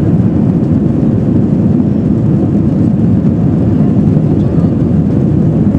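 Steady, loud engine and airflow noise inside the passenger cabin of an Airbus A321 during takeoff, a deep, even rumble.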